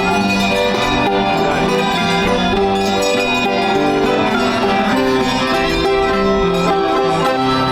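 String instruments and an accordion playing a traditional folk tune together.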